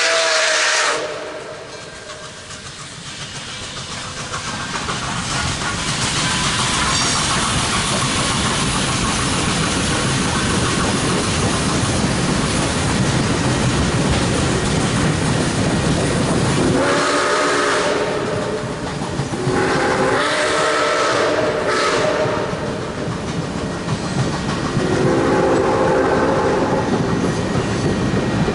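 Nickel Plate Road 765, a 2-8-4 Berkshire steam locomotive, sounding its chime steam whistle, with the first blast cutting off about a second in. The steady rumble of the train passing with its passenger cars then builds and holds. Three more whistle blasts come in the second half, the middle one the longest.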